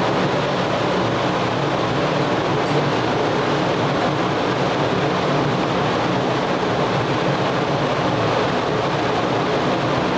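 Steady machinery noise: an even rumble and rush with no changes.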